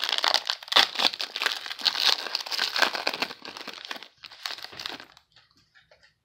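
Foil wrapper of a 2017 Leaf Draft football card pack crinkling as it is torn open by hand, stopping about five seconds in.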